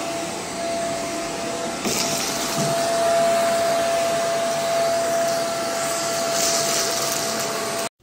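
Vacuum cleaner running steadily as a floor is cleaned, a constant motor whine over a hiss of air, a little louder from about two seconds in.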